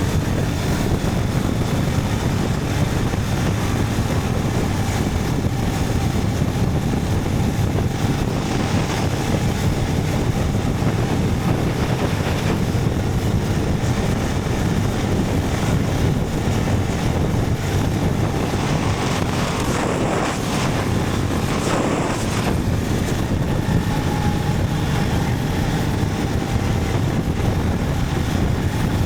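Motorcycle engine running steadily while riding, with wind rushing over the microphone. There is a brief swell of noise about twenty seconds in.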